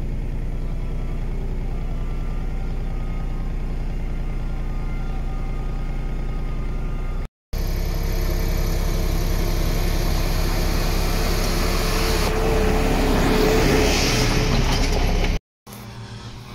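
Tractor engines in three cut-together shots. First a tractor with a buckrake runs steadily at the silage pit. About seven seconds in, a tractor coming along a track takes over, louder and growing louder as it nears. Near the end there is a quieter tractor mowing grass.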